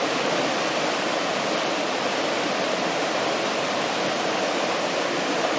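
Whitewater rapids of the Soča (Isonzo) river rushing over rocks, a steady, unbroken rushing noise.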